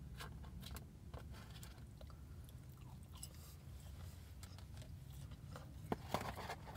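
A person chewing a sauced, breaded chicken nugget, with soft scattered crunches and mouth clicks.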